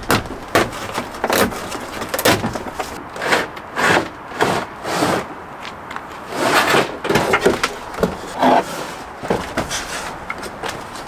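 A large van headliner board being handled and worked out of a Hyundai Starex: irregular knocks, bumps and scrapes as the stiff panel hits and rubs against the van's interior and door frame.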